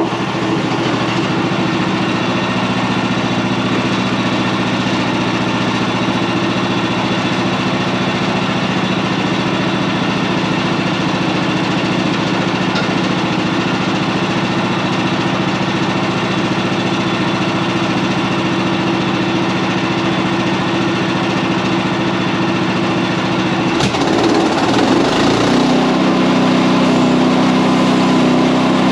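Portable bandsaw sawmill's small gasoline engine running steadily, driving the band blade through a large elm log. About 24 seconds in, the engine note shifts in pitch and gets a little louder.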